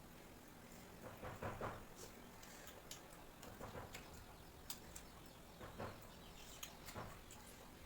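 Close-miked eating sounds: irregular soft chewing clicks and mouth smacks, a few a second.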